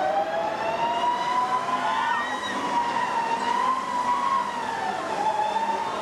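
Many riders on an amusement park thrill ride screaming together, several long, overlapping screams gliding slowly up and down in pitch.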